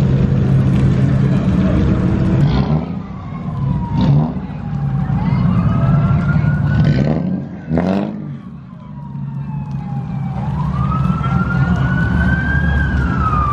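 Police car siren in a slow wail, rising and falling in pitch, over the steady low drone of idling car engines. A few short, sharp sounds cut through about four and eight seconds in.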